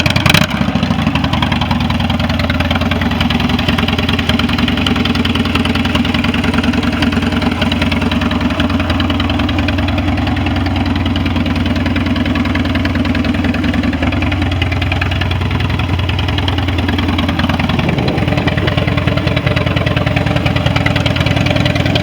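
Harley-Davidson Street Bob's V-twin engine idling steadily with its uneven motorcycle rumble, with a brief sharp noise just after the start and a short change in engine speed about three-quarters of the way through.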